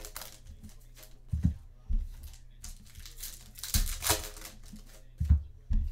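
Trading card pack wrappers and cardboard crinkling as 2018 Donruss football packs are handled and opened, in short crackly bursts with several dull knocks on the table.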